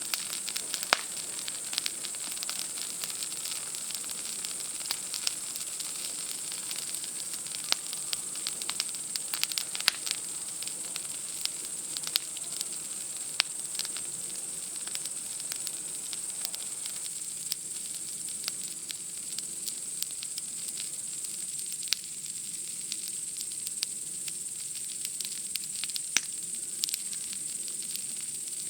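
Wood campfire crackling, with irregular sharp pops and snaps scattered throughout. Under it, a steady high-pitched chorus of night insects.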